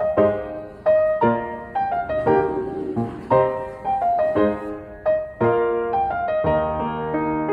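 Background piano music: a gentle piece of single notes and chords struck about once a second.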